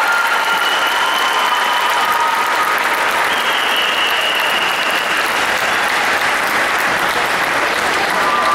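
Audience applauding steadily in an ice rink, with a few held high tones over the clapping.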